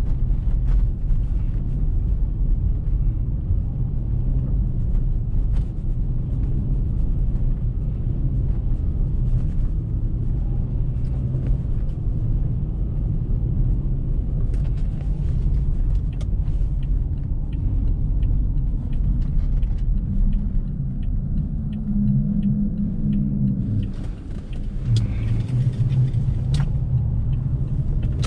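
A car driving slowly through deep snow: a steady low engine and road rumble with scattered light clicks. About 22 seconds in, the engine note wavers, then briefly drops before carrying on.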